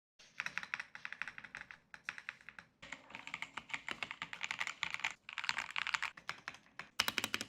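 Fast typing on a mechanical keyboard: dense, rapid key clicks in several runs that break off and change abruptly, the last short run near the end the loudest.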